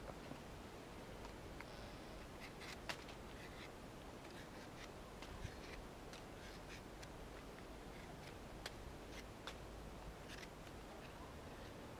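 Yakut knife whittling a green Y-stick: faint, irregular scraping cuts and small clicks of the blade on the wood.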